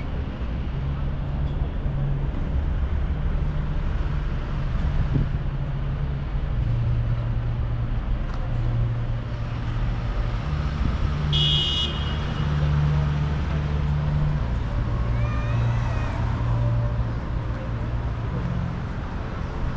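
City street traffic: steady engine hum and rumble of passing and idling vehicles, swelling and fading as they move, with one short high-pitched squeal or ring a little over halfway through.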